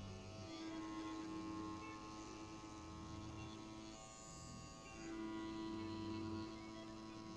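CPTink Captain One wireless rotary tattoo pen running with a liner needle on silicone practice skin: a steady electric hum that dips about four seconds in and comes back a second later.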